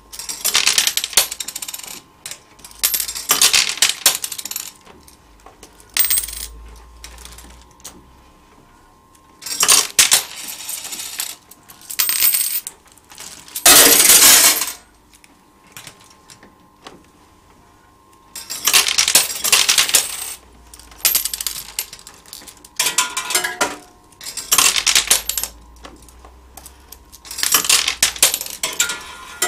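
Coins clattering in a Jungle Jive coin pusher arcade machine, in about ten separate bursts of a second or so, with quieter gaps between.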